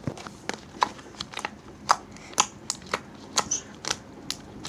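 Fingers pressing and poking bead-filled slime in a clear plastic tub, making a run of sharp, irregular clicks and small pops, about two or three a second.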